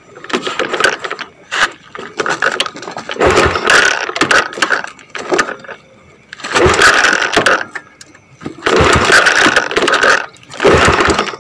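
A motorcycle engine cranked over in about five short tries, each about a second long, without catching and running.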